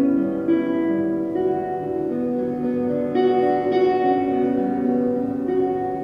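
Instrumental background music with plucked-string notes changing every second or so.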